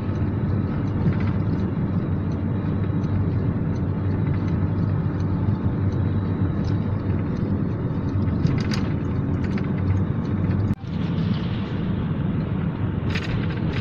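Steady engine and road noise heard inside a moving vehicle's cabin, a low even hum, with a brief break about eleven seconds in where the recording cuts.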